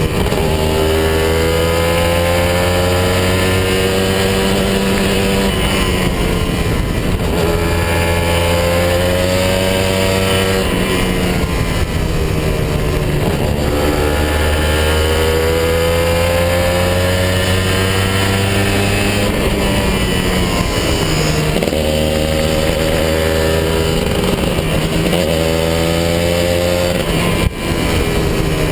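Kawasaki 150 RR's single-cylinder two-stroke engine under way, revving up and dropping back in pitch several times as the throttle opens and closes through the bends. There is a brief sharp knock near the end.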